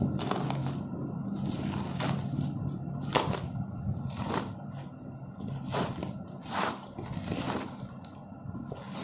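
Plastic wrap and bubble wrap crinkling and rustling as hands tear and pull it off a small cardboard box, in irregular crackly bursts.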